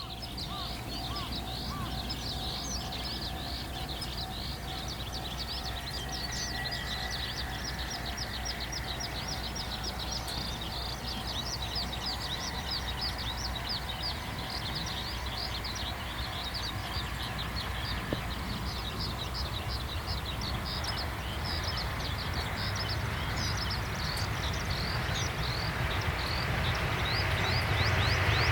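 Dense chorus of rapid, high chirping calls over a low steady rumble. An approaching electric train grows louder over the last few seconds.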